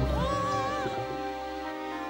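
Cartoon background music: a short sliding melodic phrase in the first second gives way to a held chord.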